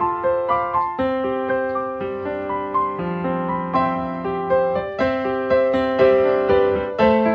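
Background piano music: a gentle melody of held notes over a slow accompaniment, about two notes a second.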